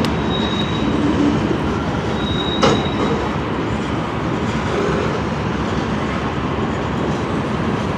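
A train rolling past close by: steady wheel-on-rail noise, with a thin high wheel squeal twice in the first three seconds and one sharp clank just under three seconds in.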